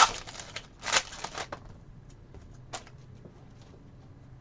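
Trading cards being handled and flipped through: two brief rustles of card sliding against card in the first second and a half, then faint ticks and a single sharper click a little under three seconds in.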